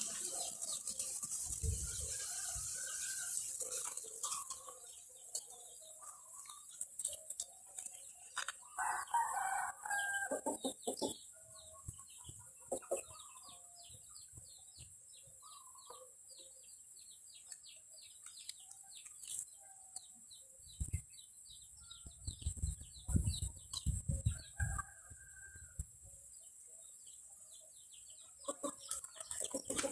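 Chickens clucking around a farmyard, with a rooster crowing once about a third of the way in. A high steady buzz fades out about four seconds in, and low bumps come in the second half.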